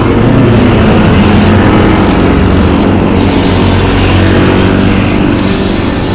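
A motor vehicle's engine running steadily close by, loudest in the first two seconds and then easing slightly.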